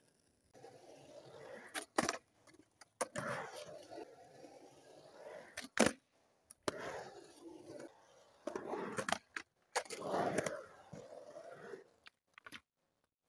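Skateboard wheels rolling over concrete, broken by sharp clacks of the board and trucks hitting the concrete and metal coping, the loudest smack about six seconds in. The rolling starts and stops abruptly several times.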